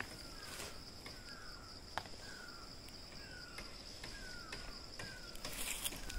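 A bird repeating a short falling call every half second or so, over a steady high-pitched insect drone, with a single sharp click about two seconds in.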